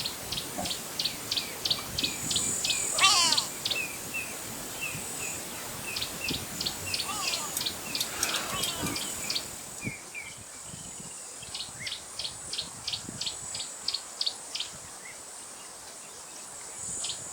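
Wild birds calling in the bush: phrases of short, high, evenly repeated notes, about three a second, that come several times with pauses between, plus a couple of quick swooping calls. A steady high insect buzz runs underneath and stops about ten seconds in.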